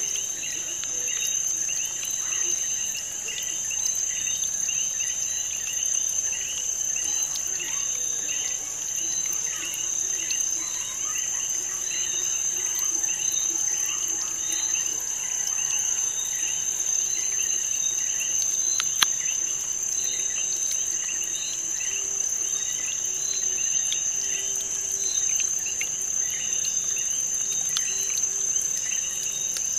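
Crickets chirping: a steady high trill with many shorter chirps over it, and a single sharp click about two-thirds of the way through.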